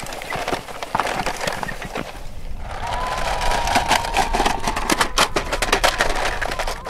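Toy vehicle rolling over grass: a dense, irregular crackling and clicking from the wheels, joined about three seconds in by a steady high whine.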